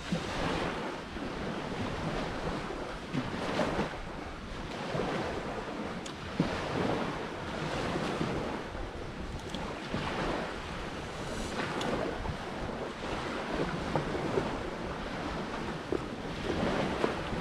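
Surf washing onto a beach, swelling and easing every few seconds, with wind buffeting the microphone. A few small clicks and taps come through, the sharpest about six seconds in.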